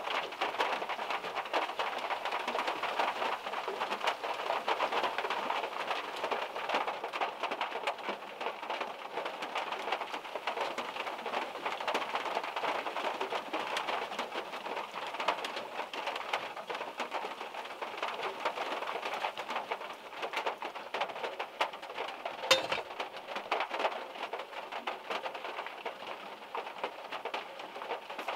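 Heavy rain and drops from the trees falling steadily on a small car, a dense patter of many fine hits. One single, louder drop hits about two-thirds of the way in.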